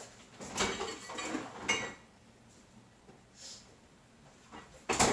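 Dishes and cutlery clattering as kitchen things are handled, a run of clinks and knocks in the first two seconds, then one sharp knock near the end.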